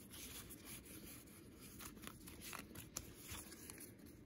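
Faint rustling and light flicks of Pokémon trading cards being moved through the hands, with a sharper tick about three seconds in.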